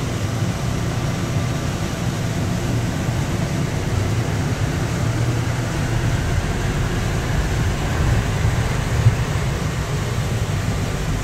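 Steady low rumble and hum inside a Bombardier APM-100 people-mover car, with one short knock about nine seconds in.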